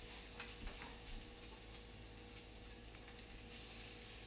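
Chicken tenderloins sizzling in hot olive oil in a skillet: a steady frying hiss with a few light taps in the first second, growing a little louder near the end as more pieces go into the pan.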